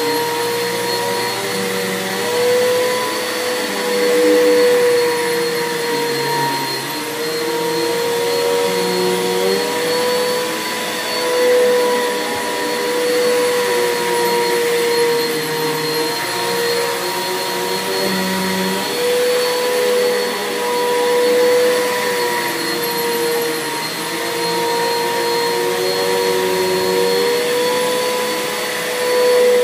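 Bissell 6583 upright vacuum cleaner running on carpet: a steady motor whine under a rush of air, swelling and dipping as it is pushed back and forth.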